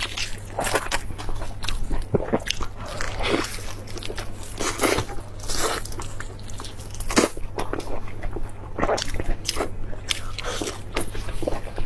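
A person biting and chewing food close to the microphone, with irregular crunches.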